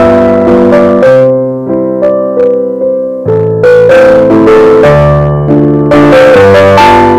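Background music on a piano-like keyboard: a slow melody of sustained notes, dropping to a quieter, thinner passage for about two seconds after the first second.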